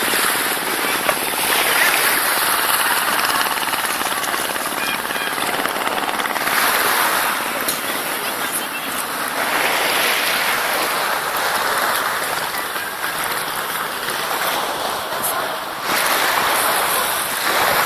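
Shallow sea water washing and sloshing, in swells that rise and fall every few seconds.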